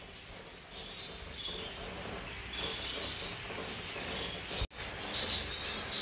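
Light rain falling on leaves and the aviary roof, a steady soft hiss, with a few faint high bird chirps in the first half.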